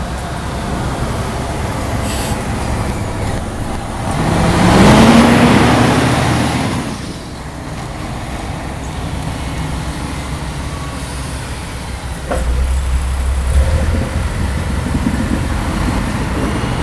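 Diesel railbus engine running at low speed as the railbus rolls slowly forward, a steady low rumble. About four seconds in a louder swell of noise with a rising tone passes over it, and about twelve seconds in the low engine rumble grows deeper and louder.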